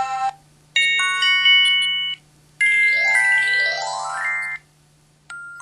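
MS400 mobile phone playing short electronic effect tones one after another. About a second in comes a chime of several held notes. Around the middle comes a rising sweep of tones, and near the end a two-note ding-dong that steps down from the higher note to the lower.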